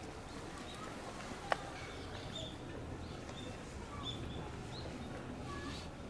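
Small birds chirping in short, scattered calls over a low steady rumble, with one sharp click about a second and a half in.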